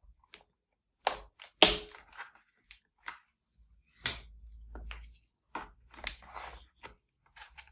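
Sharp plastic clicks and knocks as a laptop's detachable battery is unlatched and pulled out, the loudest click about one and a half seconds in, with a few fainter handling scrapes after.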